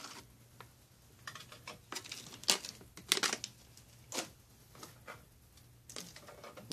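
MRE ration pouches of foil-laminate packaging crinkling and rustling as they are handled and set down on a stainless steel tray, in a few short sharp crackles and taps with quiet between.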